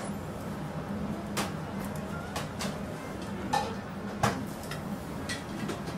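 Busy ramen kitchen: a steady low hum of kitchen equipment, with about five short, sharp clinks and knocks of metal utensils and dishware scattered through it.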